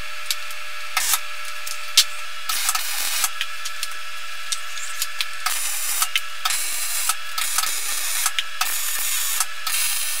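Wire-feed welder arc crackling and hissing on a frame of 20 mm steel square tube, laid down as a run of short welds, each about half a second to a second long, starting about two and a half seconds in. A few light clicks come before the welding, and a steady faint hum lies under it.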